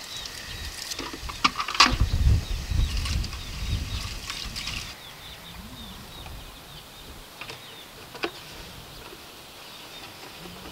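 Water running from an outdoor sink tap into a plastic chicken waterer, with knocks of the waterer being handled and a low rumble; the running water stops about five seconds in. A few sharp clicks of the waterer follow.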